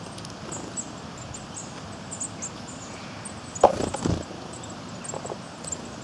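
Knocks and taps on a wooden feeding board while a Eurasian nuthatch pecks at seed and a grey squirrel comes onto the board. The loudest is a sharp knock about three and a half seconds in, followed by duller thuds, with a few lighter taps later. Short high bird notes sound throughout over a steady outdoor hiss.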